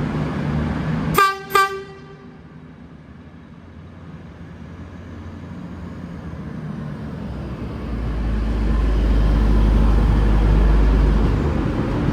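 Low-note horn of a V/Line VLocity diesel railcar giving two short toots about a second in. Later a deep rumble grows as the train pulls out, loudest from about eight seconds in before easing.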